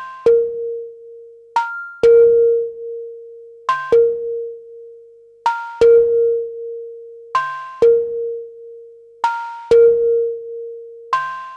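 Background music: an instrumental beat of pitched drum hits in pairs, repeating about every two seconds, each leaving a ringing tone. No vocals.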